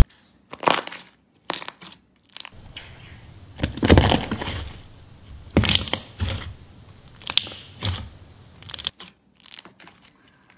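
Glossy slime being squeezed, pressed and stretched by hand, giving irregular wet squelches and sharp pops as trapped air bubbles are squeezed out.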